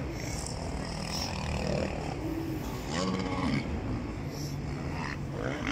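Distant off-road racing engines droning across the track, their pitch rising and falling as riders rev, loudest about three seconds in.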